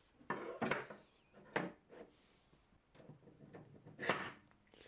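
A 3D-printed plastic build-plate holder is moved on a wooden desk and a printer build plate is slotted into it: a series of short knocks and scrapes, the loudest about four seconds in.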